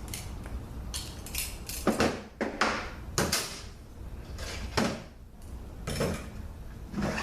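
Metal automatic-transmission parts being handled and set down on a workbench: about six separate clanks and clinks, a second or so apart.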